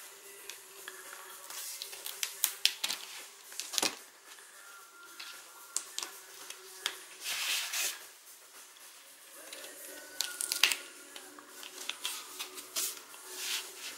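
A plastic pry tool levering a ThinkPad T495s LCD panel away from the lid's plastic surround, giving a run of sharp plastic clicks and snaps, the strongest about four seconds in. Longer scraping rubs come a little past halfway and again near the end.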